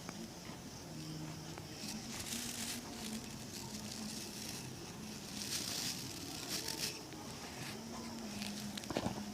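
Soft, intermittent rubbing strokes of shoe-shine work on shoe leather, a few quiet swishes over a low background hiss.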